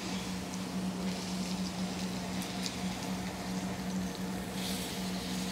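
Black-lime-crusted swordfish steaks sizzling in a hot cast-iron pan over a gas burner, with scattered small crackles over a steady low hum.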